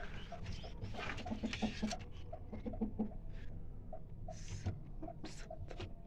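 A hen clucking steadily, short low clucks a few each second, with a few knocks and rustles mixed in.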